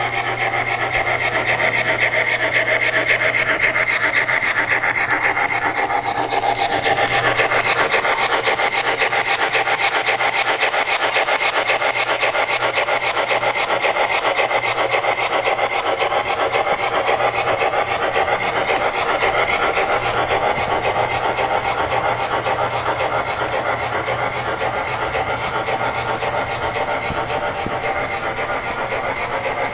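Sound system of an MTH HO-scale PRR USRA light Mikado steam locomotive (Proto-Sound 3.0) playing rapid steam chuffing through the model's speaker as it runs, mixed with model freight cars rolling over the track. A steady low hum sits underneath.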